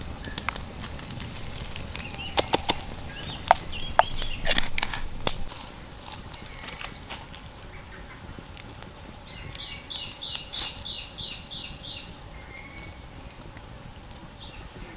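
A run of sharp knocks and clicks in the first half, then a bird calling in a quick series of about nine short notes, over a steady high-pitched hum.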